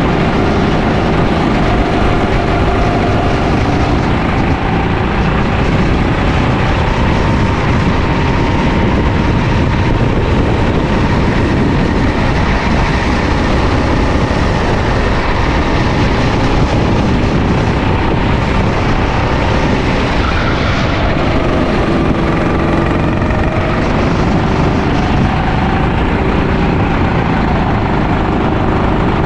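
Rental go-kart engine running loudly at race speed, heard from on board the kart, its pitch falling and rising as the kart slows for corners and accelerates out of them, over steady wind and tyre noise.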